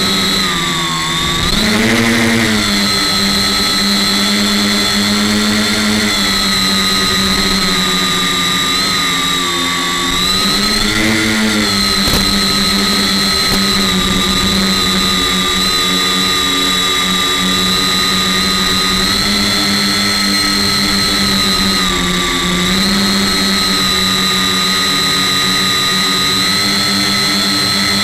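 Electric tricopter's motors and propellers heard from on board the craft, a loud steady hum with a high whine over it. The pitch dips and climbs back three times as the throttle changes: about a second in, around ten seconds in and around twenty-two seconds in.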